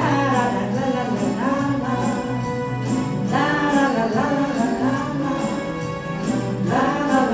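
Karaoke backing track playing an instrumental interlude of a slow ballad between verses: a melody line in three phrases over steady accompaniment.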